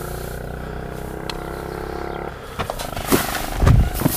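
A steady machine drone, its upper part dropping away a little over two seconds in, followed by several knocks and dull thumps of hay bales being handled, the heaviest thump about three and a half seconds in.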